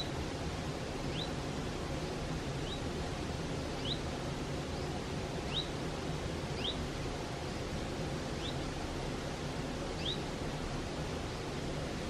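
Mountain stream rushing steadily over rocks, with a bird repeating a short, high, rising chirp about once a second.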